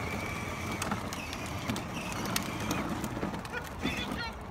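Battery-powered ride-on toy Jeep driving on an asphalt driveway: its electric motor gives a steady whine and its hard plastic wheels rumble on the asphalt, with a few small clicks and knocks.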